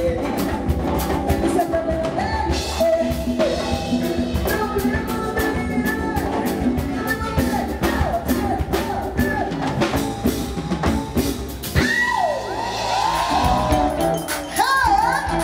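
Live band music with a woman singing lead over electric bass and a drum kit keeping a steady beat. Near the end her voice slides through curving ad-lib runs.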